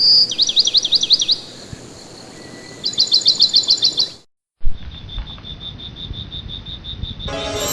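Bird calling in two quick runs of sharp repeated high notes, each lasting about a second, then after a short break a faster, fainter steady series of short high pips. Music begins just before the end.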